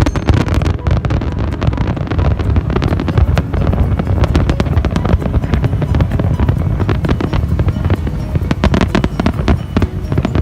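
Fireworks display: a dense, unbroken run of bangs and crackles over a continuous low rumble.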